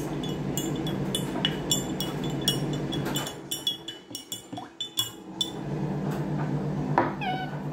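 Quick, irregular clinks of something hard tapping against glass, about three a second, each with a brief ring. Under them runs a steady low hum that drops away for a couple of seconds in the middle.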